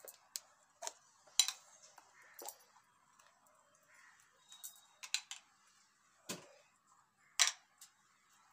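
Small jars and lids being handled and set down on a table: scattered light clicks and knocks, with a duller knock about six seconds in.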